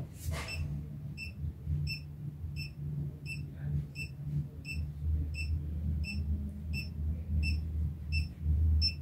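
Handheld gold-hunter treasure locator beeping steadily, about three short high beeps a second, over a faint steady low hum.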